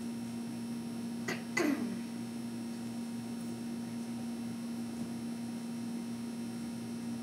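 Quiet room tone with a steady electrical hum. About a second and a half in, a click and a brief falling sweep.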